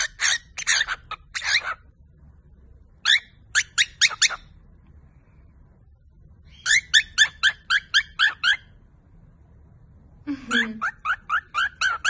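Cockatiel chirping in four bursts of quick, short, high notes, about five or six a second, each burst lasting one to two seconds with pauses between.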